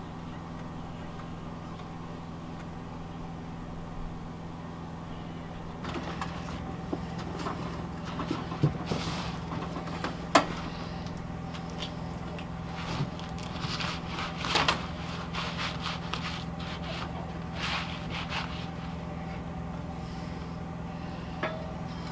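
Metal scrapes and sharp clicks from hand work on a stainless steel stovepipe and aluminium ladder, starting about six seconds in, with the sharpest click near the middle. A steady low hum runs underneath throughout.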